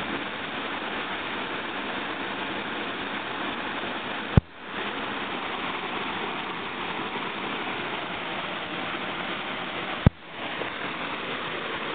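Steady rush of mountain river water pouring down a natural rock slide into a pool. Two sharp clicks come about four and ten seconds in, each followed by a brief drop in the sound.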